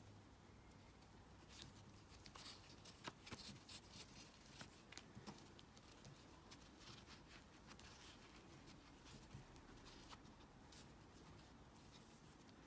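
Near silence with faint, scattered light clicks and rustles of hands working yarn with a crochet hook, mostly in the first half.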